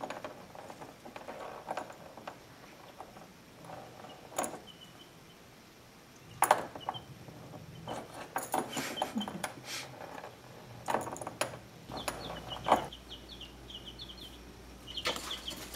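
Baby chicks peeping in short high chirps, most in a run near the end, over scattered sharp clicks and knocks as a small dog noses around the plastic brooder tub, its collar tags jingling.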